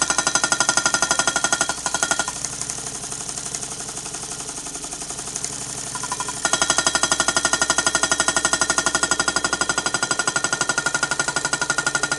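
Homemade thermoacoustic hot-air engine running, its mechanism making a rapid, even clatter of many strikes a second. It softens about two seconds in and turns loud again about six seconds in.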